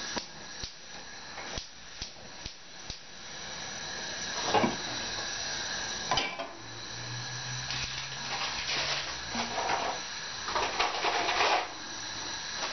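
Gas stove's spark igniter clicking several times as a burner is lit, over the steady hiss of the gas flames. Later a frying pan clatters down onto the burner grate, with a few more pan-handling knocks near the end.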